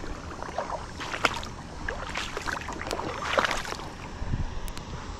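Shallow water splashing and sloshing in irregular bursts, over a steady low rumble.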